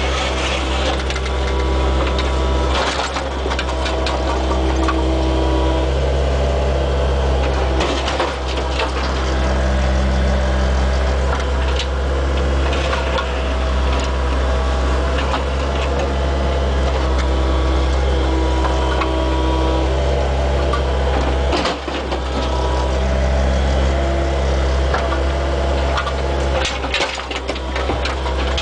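Mini excavator's diesel engine running steadily, heard from inside the cab, with a few sharp knocks and scrapes as the bucket works over broken asphalt slabs.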